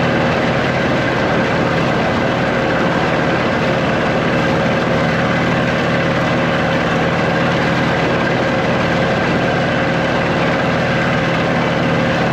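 Boat engine running steadily at speed, a constant drone of steady tones over a rushing noise.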